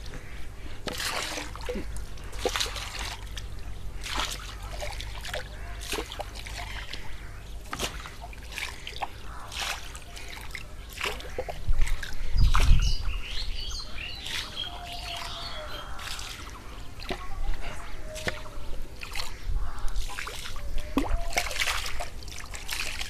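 Liquid poured from a small plastic cup into a water-filled fish tank, splashing in a string of short pours. Small birds chirp for a couple of seconds about halfway through.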